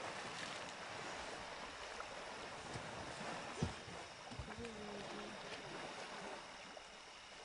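Elephants swimming and splashing in a waterhole: a steady wash of water noise, with a single sharp knock about halfway through and a brief low tone just after.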